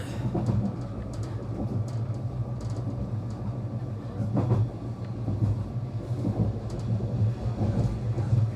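Passenger train running along the track: a steady low rumble with scattered short clicks and knocks from the wheels and carriage, one of them sharper about four and a half seconds in.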